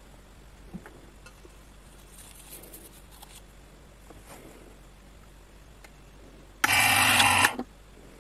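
Manual label-gluing machine working a paper label through its glue roller: faint handling clicks, then one loud rasping run of about a second that starts and stops abruptly near the end.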